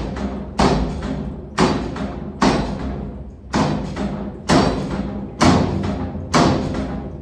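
Amur tiger striking a metal den door with its paw, seven blows about once a second, each bang ringing on as it dies away: the tiger demanding its meat.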